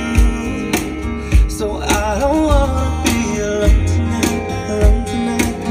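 A pop song with singing, guitar and a steady kick drum a little under twice a second, played through a Honda CR-V's upgraded car audio system (Pioneer AVH-G215BT head unit, three-way front speakers, 10-inch Vox Research subwoofer) and heard inside the cabin.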